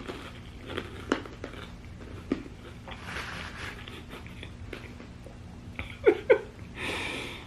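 Person chewing a mouthful of food close to the microphone, with scattered wet mouth clicks and smacks. There is a short voiced sound around six seconds in.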